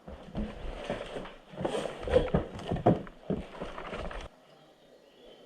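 A player's footsteps moving over rough ground, with gear and the camera mount knocking, about two steps a second. They cut off abruptly about four seconds in.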